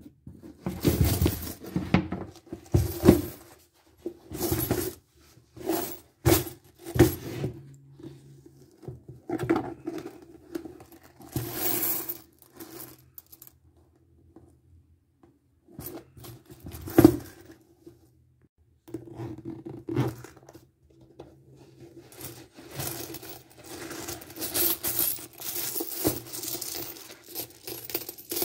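Coins clinking and jingling in irregular bursts as a hand rummages inside a shoe and scoops them out, with rustling as the shoe is handled, and short pauses between bursts.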